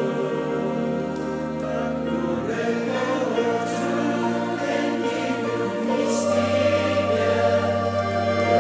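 A choir singing long held chords, the low part moving to a new note about two and a half seconds in and again just before six seconds.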